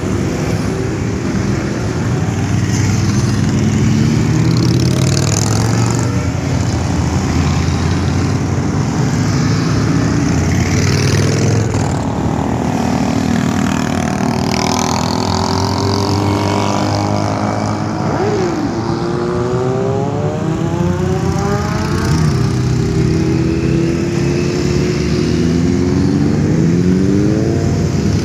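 A procession of motorcycles riding past one after another, their engines running continuously. In the second half, and again near the end, engine pitch climbs in rising sweeps as riders accelerate away.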